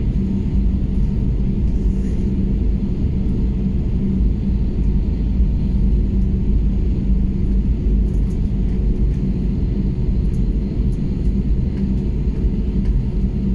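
Cabin noise of an Airbus A320neo airliner taxiing: a steady low rumble with a steady hum.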